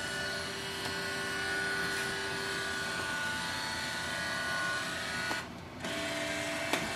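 Canon CanoScan LiDE 400 flatbed scanner's carriage motor running with a steady whine as the scan head travels during a scan. About five and a half seconds in it stops briefly, then runs again at a different pitch.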